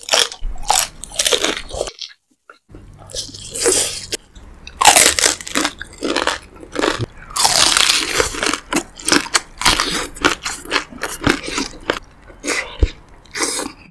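Close-miked eating sounds: a person biting and crunching through food in a quick, irregular run of crunches, with a short break about two seconds in.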